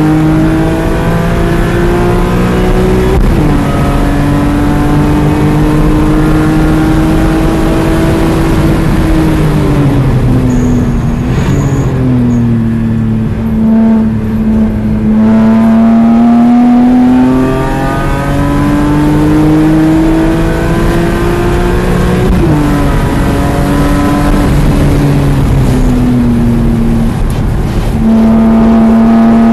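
BMW E46 M3's S54 3.2-litre inline-six engine driven hard, heard from inside the cabin. Its pitch climbs through the revs with sharp drops at upshifts about 3 and 22 seconds in. The revs fall away between about 9 and 12 seconds in and stay lower for a few seconds before climbing again.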